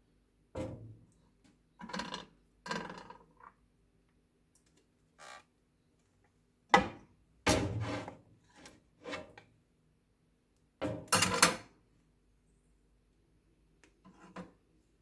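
Dishes and utensils knocking and clinking in a string of separate clatters, the loudest about seven and eleven seconds in.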